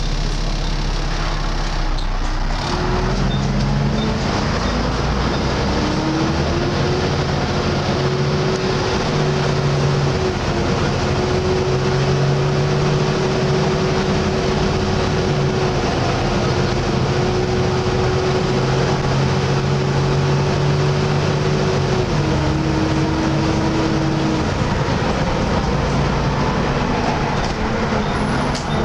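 Volvo B7TL double-decker bus running hard under load, with a loud steady 'hoover' whine over the diesel engine. The pitch climbs a couple of seconds in, then steps up and down several times as the automatic gearbox changes gear, and the drive drops away near the end.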